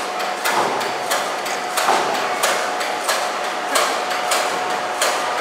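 Repeated sharp knocks, about two a second and slightly uneven, over a steady high tone.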